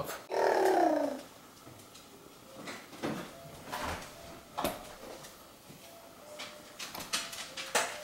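A short pitched cry that falls in pitch during the first second, then a few scattered light knocks and clicks of a wooden high chair as it is handled and wiped.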